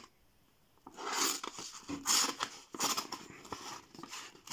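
Old folding pocket knife slicing through a sheet of paper: after a quiet first second, a series of rasping cutting strokes, about four of them, as the blade works through the sheet.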